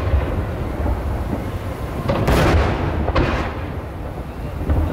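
Aerial firework shells bursting in deep, rolling booms that run into one another, with a brief hiss about two seconds in.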